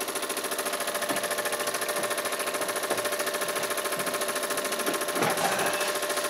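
Mamod SE2 toy steam engine running steadily, its single oscillating cylinder chuffing in a rapid, even beat.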